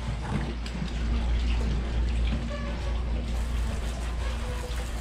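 Water running from a garden hose, with a steady low hum underneath.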